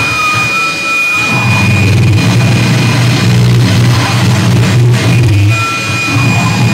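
Loud, distorted electric guitar noise played through effects pedals and an amplifier: a dense low drone under a thin, steady high whine, with short wavering tones in between.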